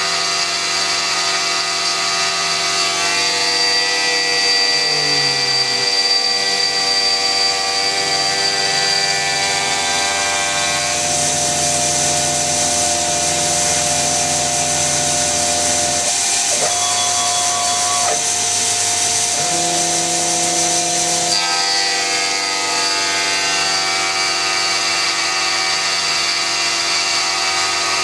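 CNC-converted X2 mini mill running a program: the spindle motor runs steadily under a layered whine from the axis drive motors. The pitch shifts and glides as the table moves between cuts, with a change in the sound about 11, 16 and 21 seconds in.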